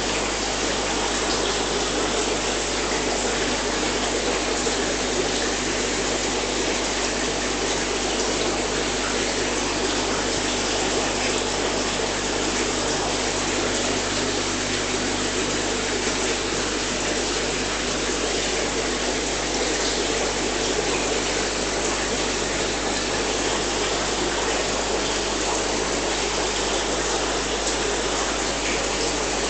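Aquarium water circulation: a steady rush of running water with a low pump hum underneath.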